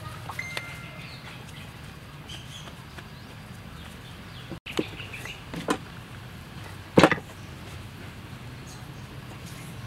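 Dough being worked by hand, then a wooden rolling pin on a floured wooden chopping board, with a few short knocks of wood on wood, the loudest about seven seconds in, over a steady low hum.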